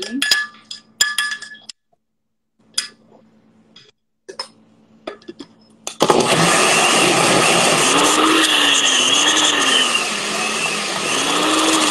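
A few sharp clinks and knocks against the blender jar, then about halfway through the blender starts and runs loudly and steadily through a thick, firm batter, its motor pitch dipping and rising under the load.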